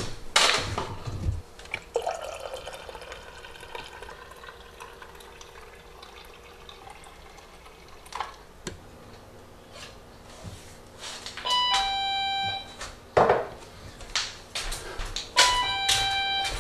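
A single-serve coffee maker brews quietly into a mug. Later a two-note doorbell chime, a higher note then a lower one, rings twice about four seconds apart, with a thump between the two rings.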